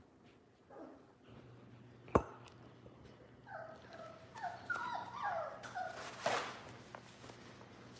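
Month-old red Labrador puppies whimpering: a string of short, high whines that fall in pitch, mostly in the second half. A single sharp knock a little after two seconds is the loudest sound.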